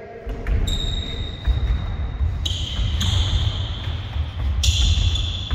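An athlete's running footsteps thudding on a sports hall floor during a sprint drill. A high, steady tone comes and goes several times over them.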